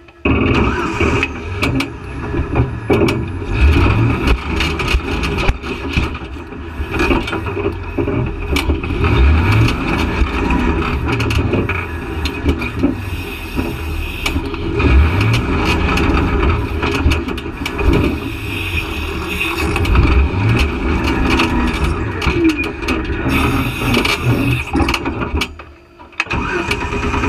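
Off-road vehicle's engine revving up and down in repeated bursts as it climbs a steep rocky hill, with scattered sharp knocks and clatter throughout. The engine drops away briefly near the end, then picks up again.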